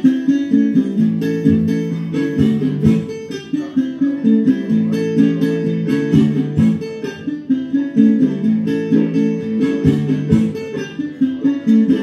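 Music led by plucked acoustic guitar, with a steady run of picked notes.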